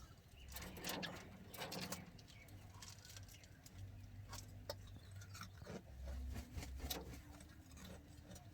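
Budgerigars chirping and chattering faintly, with scattered light clicks and scratches.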